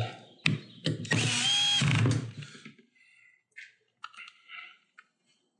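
Milwaukee cordless screw gun driving a screw: a brief blip of the motor, then a steady whir of about a second that stops. A few faint handling clicks follow.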